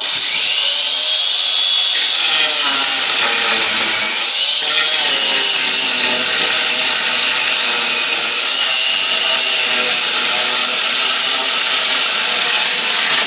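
125 mm angle grinder fitted with a chainsaw attachment, switched on and sawing through a wooden board: a steady high motor whine with the chain cutting the wood, starting at once.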